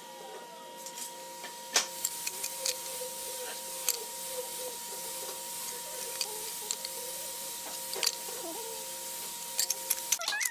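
Irregular knocks and clacks of hardwood boards being handled and set down on a concrete floor, the sharpest about two seconds in and a quick cluster near the end, over a steady background hum.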